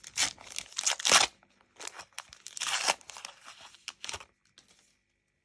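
Foil wrapper of a Panini Adrenalyn XL trading-card booster pack being torn open and crinkled by hand, in a run of short crackling tears over about four seconds.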